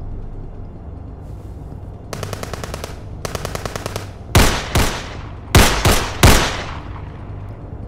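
Gunfire: two rapid bursts of fast, evenly spaced shots about two and three seconds in, then five loud single handgun shots with echoing tails, spread over about two seconds.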